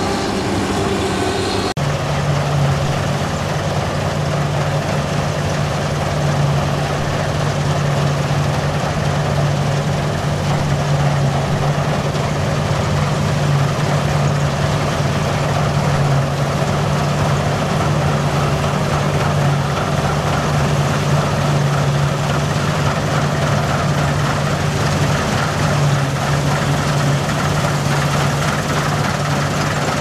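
Massey Ferguson Cerea combine harvester running steadily while cutting and threshing barley: a constant low engine drone with the whirring rush of the header and threshing machinery. The sound changes abruptly about two seconds in, to a steadier, lower drone.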